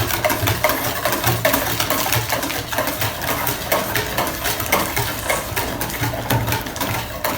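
A utensil stirring cake batter in a bowl, with rapid, irregular clinks and scrapes against the bowl.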